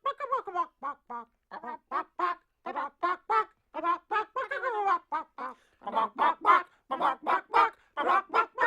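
Cartoon bird voice squawking and clucking in a rapid run of short pitched calls, about three to four a second, louder and busier in the second half.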